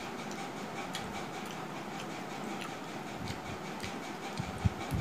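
Eating sounds from hand-eating rice and curry: irregular small clicks of chewing and mouth smacks, with fingers mixing rice on steel plates, over a steady background hiss. A few soft low thumps come in the second half, the loudest near the end.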